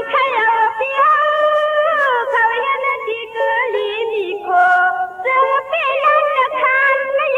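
A Shan song: a singer with instrumental accompaniment, the voice wavering on long held notes over short low notes and faint ticks.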